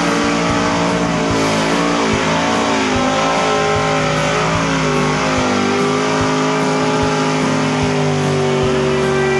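Pickup truck engine revving hard at high rpm, its pitch wavering up and down, then held nearly steady through the second half.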